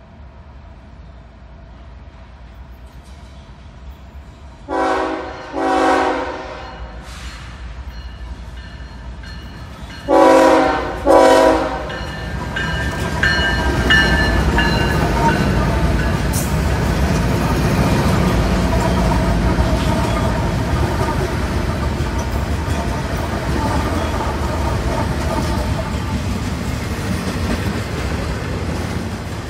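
Florida East Coast Railway freight train sounding its diesel locomotive horn in two pairs of blasts as it approaches. The locomotives then pass close by, followed by a steady rumble and clickety-clack of intermodal cars rolling along the rails.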